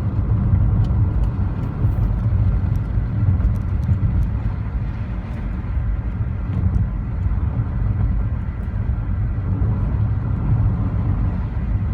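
Car driving along the road: a steady low rumble of engine and road noise.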